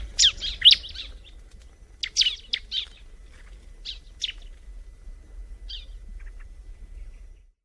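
Bar-winged prinia (ciblek) singing: a quick run of high, sharp chirps that thins into short scattered bursts of chirps, over a faint low hum.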